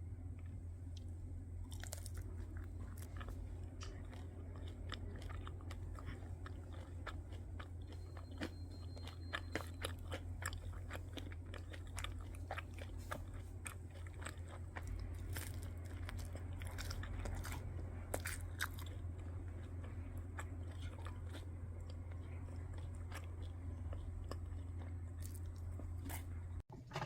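A person biting and chewing crunchy food close to the microphone, with irregular crisp crunches throughout, under a steady low hum.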